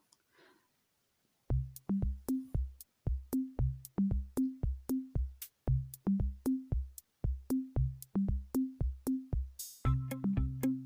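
Background music: a programmed drum-machine beat with low kick drums and sharp ticks that comes in about a second and a half in, with fuller synth chords joining near the end.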